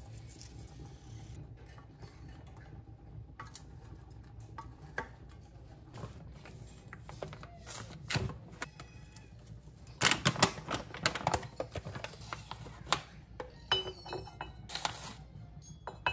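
Kitchen counter handling sounds: a plastic gravy-mix pouch crinkling and a glass jar and utensil clinking, as scattered clicks with a busy flurry of clinks and rattles about ten seconds in, over a faint low hum.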